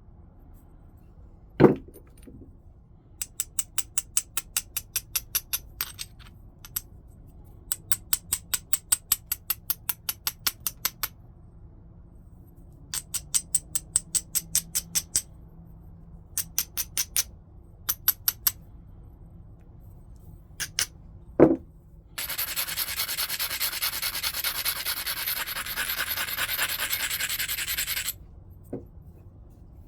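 A flint preform's edge being abraded with a coarse abrading stone: several runs of quick back-and-forth scraping strokes, about six to eight a second, then about six seconds of steady grinding. This prepares the platforms for flaking. Two sharp stone clicks are heard, one near the start and one just before the long grind.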